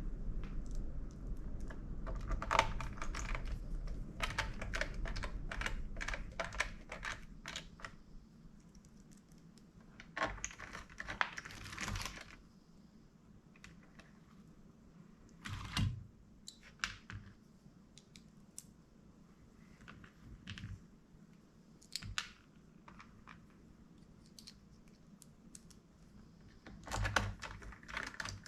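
Small plastic clicks and taps of laptop parts being handled and pried during disassembly. The clicks come in dense clusters over the first twelve seconds and then only now and then. A low hum runs under them for about the first eight seconds.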